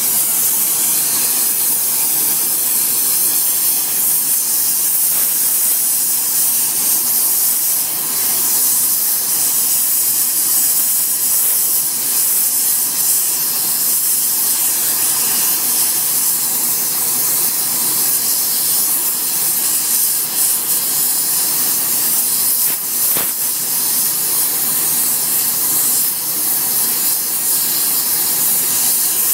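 Gas brazing torch flame hissing steadily while it heats the edge of a steel cane-shredder hammer to braze on TufCote hardfacing. A single brief click sounds about two-thirds of the way through.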